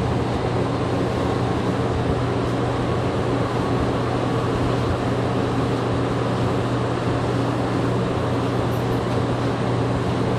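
Interior running noise of a Mexico City Metro NM-79 rubber-tyred train: a steady rumble with a constant low hum, heard from inside the carriage.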